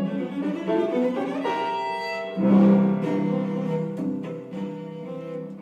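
Instrumental music led by bowed strings: held notes that swell louder about two and a half seconds in and stay sustained.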